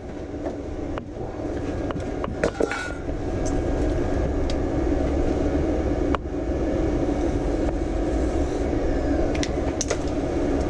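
Steady low rumbling noise, louder from about three seconds in, with a few sharp clicks and knocks of things being handled on a workbench.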